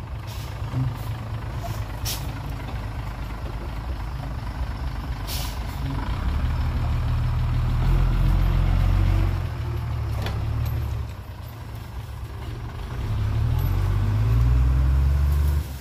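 Hyundai dump truck's diesel engine running under load while its raised tipper bed empties soil, revving up twice. The second rev climbs in pitch as the truck pulls away, and is cut off abruptly near the end. A few short sharp clicks sound over the engine.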